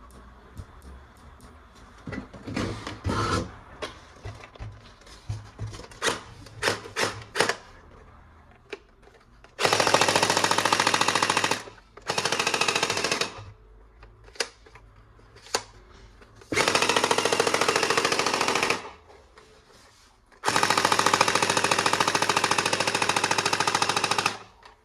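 Plastic clicks and knocks as a toy gun is handled, then four long bursts of rapid machine-gun-like rattling from the toy gun firing, the last one the longest.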